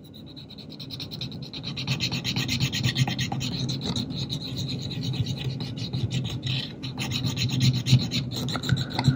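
Quick, continuous rubbing strokes on the Kodak Instamatic 300's plastic body as restorer compound is scrubbed into it. The rubbing starts faint and becomes steady about a second in.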